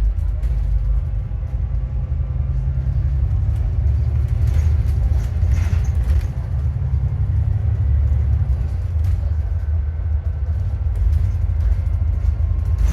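Alexander Dennis Enviro400MMC double-decker bus heard from on board while driving: a steady low engine and drivetrain rumble with a few rattles, and a faint steady whine which the uploader puts down to a bad alternator.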